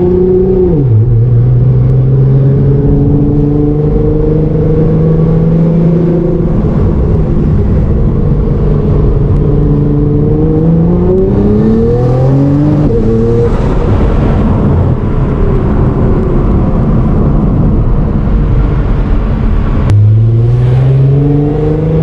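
Nissan R35 GT-R's twin-turbo 3.8-litre V6 heard from inside the cabin, pulling through the gears. Its pitch drops at an upshift about a second in, climbs again about halfway through, turns rougher and noisier for several seconds, then rises and drops at another upshift near the end.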